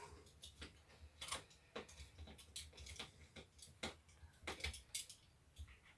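Faint, irregular light clicks and taps of a cordless drill's plastic parts being handled, with no motor running.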